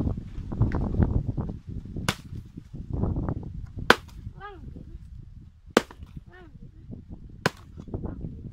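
Machete chopping a dry palm frond stalk: four sharp cracks of the blade striking, a little under two seconds apart, amid low rustling and thuds of the stalk and dry leaves.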